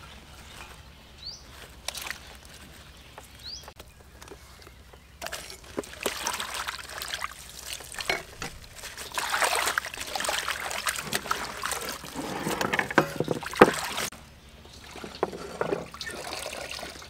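Water splashing and sloshing in a steel basin as hands rub and rinse cut napa cabbage leaves. It starts about five seconds in, is loudest in the middle of the stretch, and dies down near the end.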